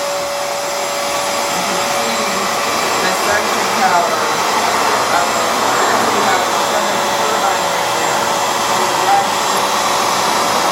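Hoover FloorMate Edge hard-floor cleaner running steadily on a wood floor, its suction motor whirring as it washes and picks up water.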